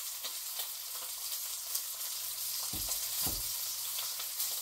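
Thick Kansas City strip steak searing in a frying pan, sizzling and crackling steadily, with two dull knocks a little past the middle.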